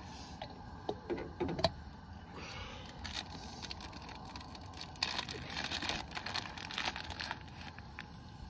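Plastic bag of shredded cheese crinkling as it is handled and opened, from about five seconds in, after a few light clicks and knocks near the start.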